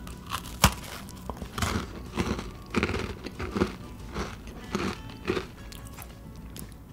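A chocolate cookie snapping sharply as it is bitten off, then a run of crunchy chews, a little under two a second, close to the microphone.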